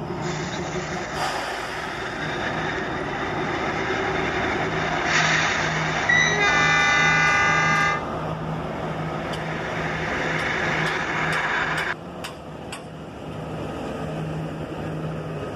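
Narrow-gauge ZDM 717 diesel locomotive idling with a steady low engine hum. About six seconds in, a horn sounds one long blast of nearly two seconds, the loudest thing heard.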